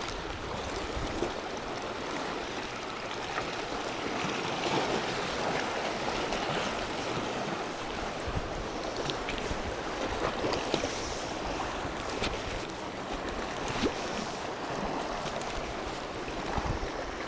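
Sea water washing and splashing against shoreline rocks, a steady hiss of surf, with wind buffeting the microphone in uneven low rumbles.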